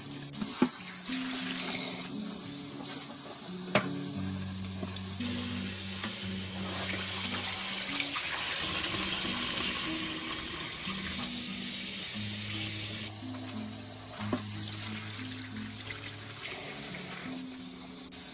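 Tap water running into a pot of soybean sprouts in a stainless steel sink as hands rinse and stir the sprouts, the water louder in the middle stretch, with a few sharp clicks. Soft background music with held low notes plays throughout.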